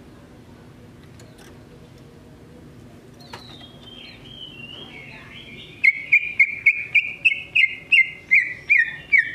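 Male green leafbird (cucak ijo) singing. After a quiet start, a soft warbling phrase comes about three seconds in. Near the end it breaks into a loud run of sharp repeated chirps, about four a second.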